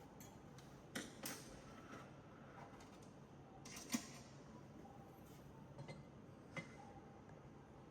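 A few faint, scattered metal clicks and knocks, about four in all, as a metal mounting plate and screws are handled and set against a trolley frame.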